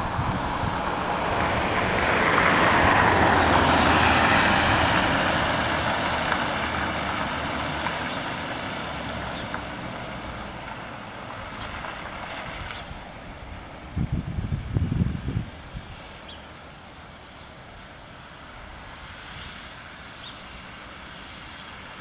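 A rushing noise like a vehicle passing, swelling over the first few seconds and then slowly fading. Low buffeting, likely wind on the microphone, comes about two-thirds of the way through.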